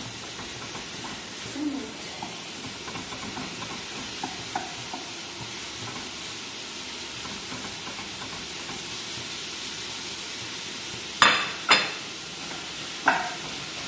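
Minced beef sizzling steadily in a frying pan, stirred and broken up with a wooden spatula, with small faint scraping ticks. Two sharp knocks come near the end, then a lighter one.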